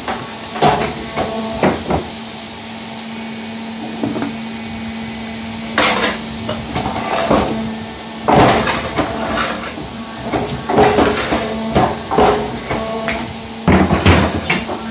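Hydraulic stone-splitting press cutting granite into cubes: the machine hums steadily while granite blocks crack under the blade and the pieces clack against the steel table and each other. The clacks come irregularly, in clusters about six seconds in and again near the end.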